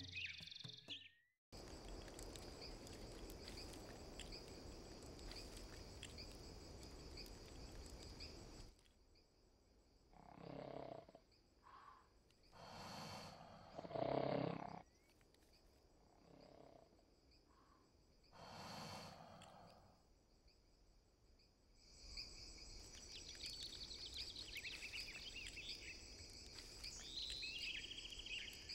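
Faint night-time jungle ambience of insects chirping, with a steady high drone and scattered bird chirps near the end. In the middle it drops to a quieter stretch with a few soft swells of sound, the loudest about halfway through.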